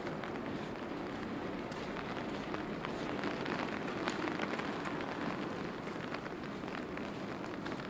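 Steady rain falling on a wet city street, with many small drip ticks and footsteps on the wet pavement.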